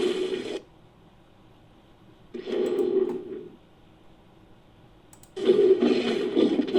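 Designed monster vocal sound effects, layered from big-cat and ape roar recordings: a call trailing off at the start, a short rough call of about a second, then a longer one starting near the end.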